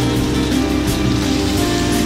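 Background instrumental music over a steady sizzle of raw mutton pieces frying in oil and masala in a wok.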